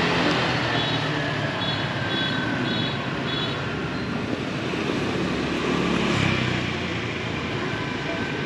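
Street traffic of motor scooters passing, a steady hum of small engines and tyres that swells slightly about six seconds in. A short run of faint high-pitched peeps sounds between about one and three seconds in.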